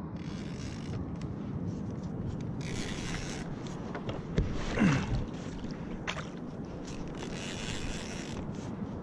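Fishing reel being cranked in short spells, the line winding in, over a steady low wash of water around a kayak. About five seconds in, a brief knock and a short falling tone are the loudest sounds.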